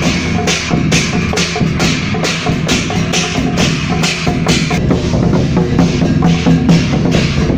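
Chinese temple procession percussion: big drum and cymbals played together in a steady beat of about two strikes a second, with held tones underneath.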